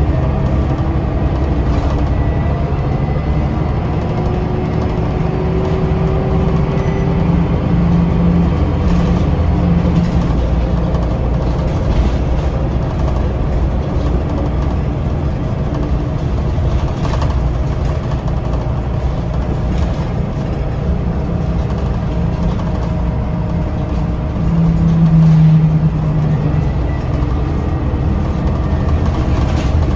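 Scania L94UB bus's DC9 five-cylinder diesel engine running under way, heard from inside the cabin, with a few brief rattles; the engine note shifts and swells louder near the end.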